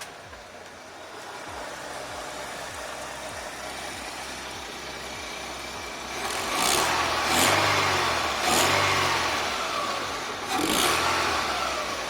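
2005 Chevy Aveo's four-cylinder engine, fitted with an aftermarket cold air intake and open filter, running and then revved several times in quick blips in the second half, with loud intake noise on each rev.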